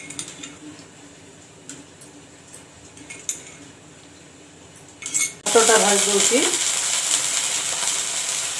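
A metal spoon clinks a few times against a cup and pan. Then, about five and a half seconds in, green peas hit hot oil in a kadai and start a loud, steady sizzle of frying.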